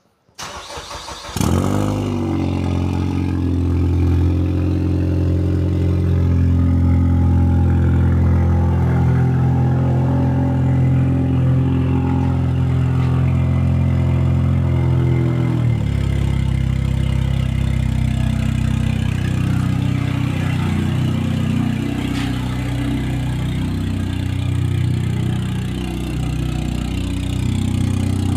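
Car engine cranked by the starter and catching about a second in, then idling steadily through an exhaust with a novelty turbo-whistle tip. About halfway through, the idle note drops and settles.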